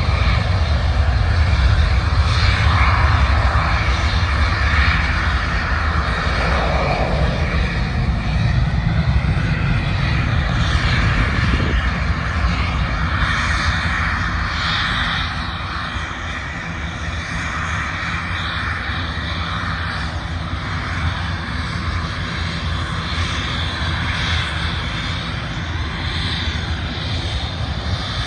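Aircraft engines running on an airfield, a steady drone that eases off a little about halfway through.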